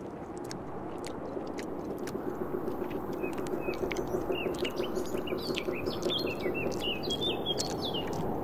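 Small birds chirping in quick, short calls over a steady background hiss with scattered faint clicks; the chirps begin about three seconds in.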